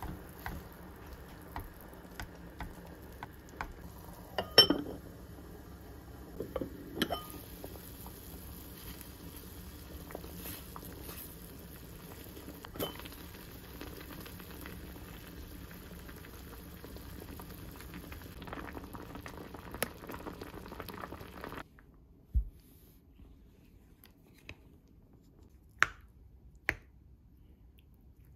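Soft tofu stew boiling in a clay pot, a steady bubbling, with knocks and clicks from a wooden spoon stirring in the pot, the loudest about four and a half seconds in. About three-quarters of the way through the bubbling cuts off, leaving a low thump and a few sharp taps.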